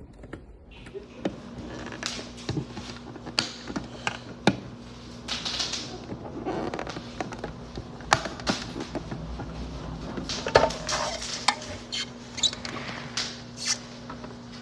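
Irregular clicks, knocks and rustles of plastic food containers being handled. A steady low hum runs underneath.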